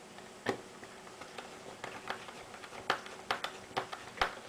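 Small screwdriver driving a screw into the lid of a plastic project box: scattered sharp clicks and taps of metal on plastic, most of them bunched in the second half.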